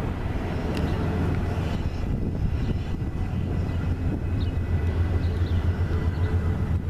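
Diesel locomotive engines in a rail yard giving a steady low rumble, a little stronger in the second half, with a few faint bird chirps over it.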